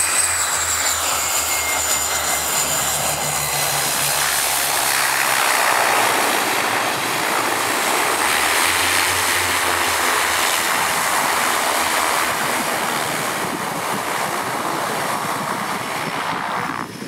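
A de Havilland Canada DHC-6 Twin Otter's two Pratt & Whitney PT6A turboprop engines and propellers running as the ski-equipped plane touches down and slides across snow: a loud, steady rush of propeller and engine noise over a low hum. The sound drops off suddenly just before the end.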